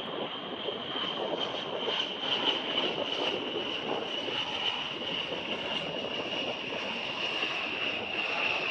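A-10 Thunderbolt II's twin General Electric TF34 turbofans running, a high whine that slowly falls in pitch over a steady rushing noise.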